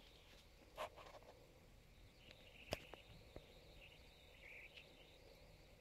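Near silence: quiet room tone with a few faint sharp taps or clicks, one about a second in and a sharper one near the middle.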